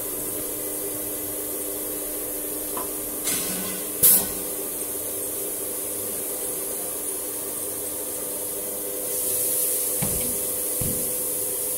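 CNC router's automatic tool change, with the steady hum of the running machine. Compressed air hisses: a short hiss, then a sharp loud blast about four seconds in, and a longer hiss near the end with two dull knocks as the saw-blade aggregate head is set down in the tool rack.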